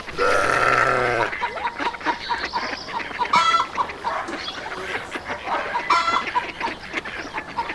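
Hens clucking, with a longer call in the first second and short clucking calls about 3.5 s and 6 s in.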